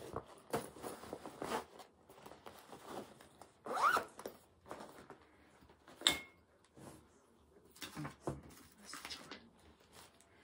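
Handling noises as a cross-stitch project is put away: rasping strokes of a zipper on a project bag being zipped, with a sharp click about six seconds in.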